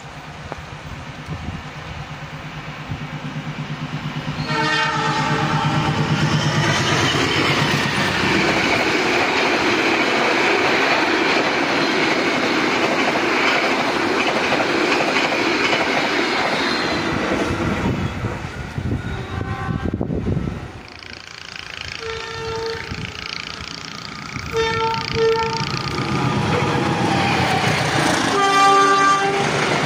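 KAI passenger train running through the station at speed: the locomotive horn sounds as it nears, its pitch dropping as it goes by, then the carriages pass with a steady rumble and wheel clatter. After a sudden cut, a second train's locomotive sounds its horn three times as it approaches and runs through.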